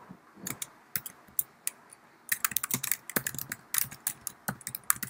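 Typing on a computer keyboard: irregular key clicks, a few scattered at first, then quicker runs of keystrokes from about two seconds in.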